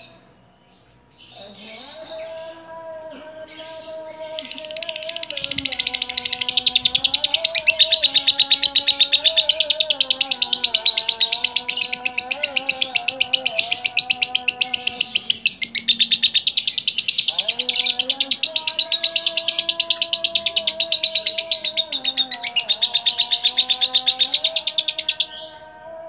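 Lovebird singing a long-duration 'ngekek': one unbroken, very rapid high-pitched chattering trill that starts about four seconds in, runs for about twenty-one seconds and cuts off abruptly near the end. Fainter, lower sustained tones sit beneath it.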